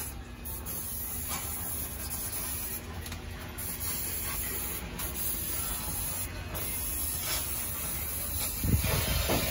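Steady hissing noise with no distinct event.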